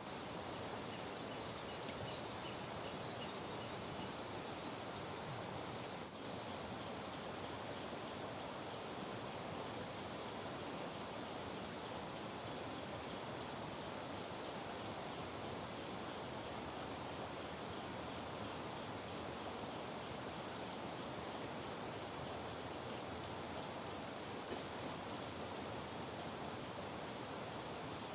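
A bird repeats a short, sharp rising call about every two seconds, starting about seven seconds in, over a steady background hiss.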